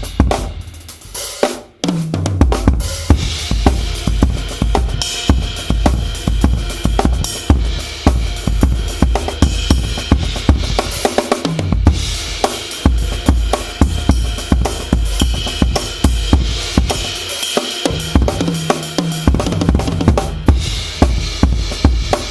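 Drum kit played as a groove, with bass drum, snare and Meinl Byzance cymbals, recorded through a Yamaha EAD10 kick-drum-mounted mic. It starts sparse for the first couple of seconds, then settles into a steady, continuous beat with ringing cymbals over the drums.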